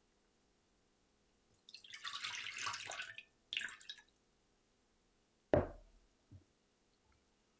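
Water pouring off a glass bowl of raw shrimp, a pour of about a second and a half followed by a shorter one. Then the glass bowl is set down on a wooden counter with a heavy knock, and a lighter knock follows.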